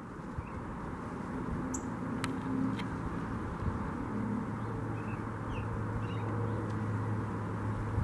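Steady low hum of a vehicle engine, growing a little stronger about halfway through, with a few faint, brief bird chirps.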